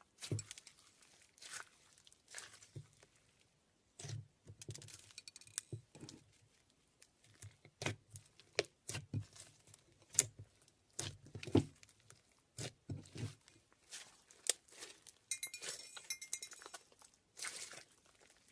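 Slime being squeezed and pulled by hand, giving irregular sticky crackles, clicks and pops.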